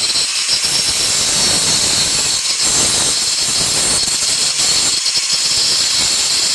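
Angle grinder grinding down a flared-out edge on steel, a steady high-pitched hiss and whine under load.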